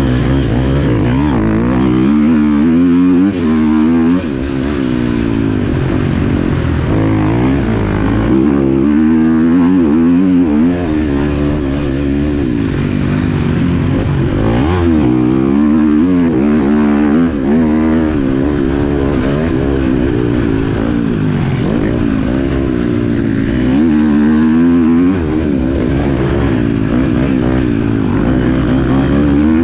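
Motocross bikes racing, their engines revving up and down over and over as they accelerate and shift on the track.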